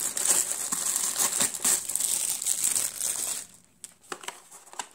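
Packaging crinkling as it is handled, a dense crackle that stops abruptly about three and a half seconds in, leaving only a few faint clicks.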